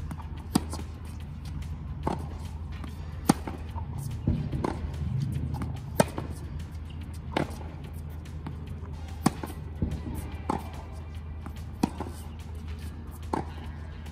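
Tennis rally on a hard court: sharp pops of racquets striking the ball and the ball bouncing, about one every second and a half, over a steady low rumble.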